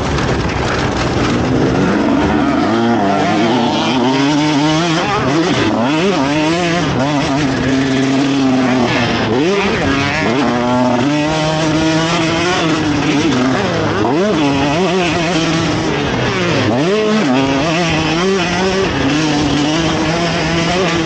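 KTM SX150 two-stroke motocross engine revving hard under racing throttle, its pitch climbing and dropping over and over with gear changes and the throttle going on and off, heard from a camera mounted on the bike.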